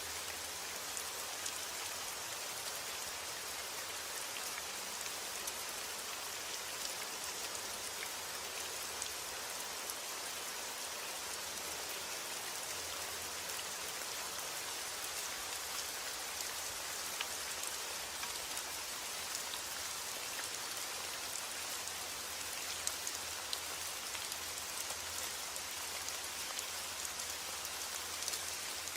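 Steady rainfall hissing, with scattered individual drops ticking on a surface.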